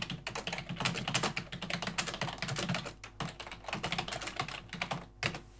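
Fast typing on a computer keyboard: a quick, continuous run of key clicks that stops about five seconds in.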